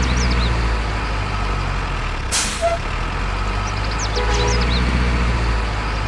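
Heavy diesel truck engine running with a steady low rumble, with a short air-brake hiss about two and a half seconds in.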